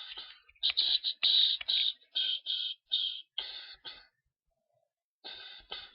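A singer's mouth sounds: a run of short, rhythmic, beatbox-like vocal bursts about three a second, breaking off for about a second before two more near the end.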